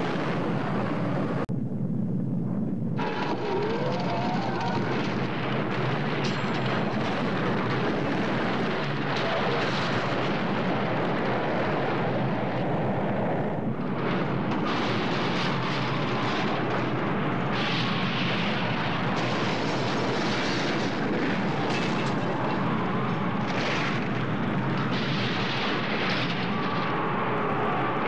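Continuous loud roar and rumble of a nuclear-blast sound effect, dense and unbroken, with the hiss on top briefly falling away about two seconds in.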